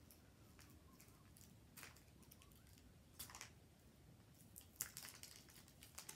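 Faint, scattered crinkles of a plastic tear strip being picked at and peeled off a 5 Surprise Mini Brands capsule ball: a few short crackles, about four, against near silence.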